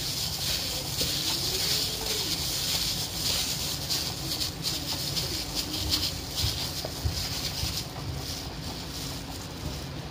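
Plastic-gloved hand rustling and squishing raw chicken wings in a stainless steel bowl, with crinkling bursts over a steady background hiss and rumble.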